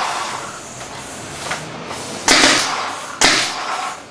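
Paintball marker on a home-built turret firing two shots about a second apart, each a sudden sharp shot that trails off in an echo.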